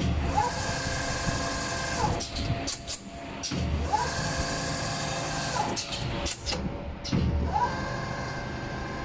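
Automatic armature winding machine running through its winding cycles: three times a motor whine rises quickly, holds steady for about a second and a half, then falls away. Sharp clicks sound between the cycles.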